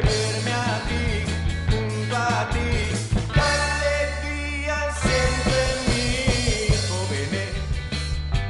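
A band's song playing: a sustained bass line under drum hits and a wavering lead melody.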